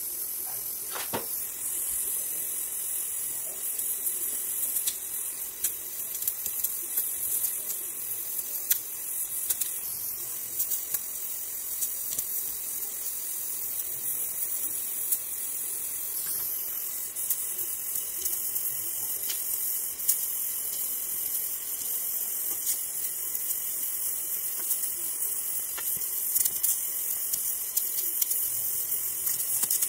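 Gas welding torch flame hissing steadily while aluminium filler rod is melted onto a cast aluminium engine casing, with small irregular crackles.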